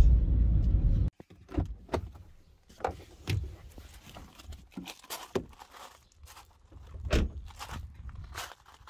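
Steady low car-cabin rumble for about the first second, cutting off abruptly. Then a string of irregular knocks and crunches: a car door being handled and footsteps on a gravel drive.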